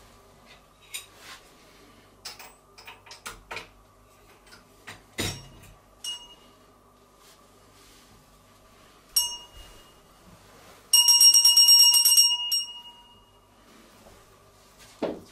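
A bell rings: a single ding, a second ding a few seconds later, then about a second and a half of fast ringing that fades away. Soft knocks and rustling of someone moving about come between.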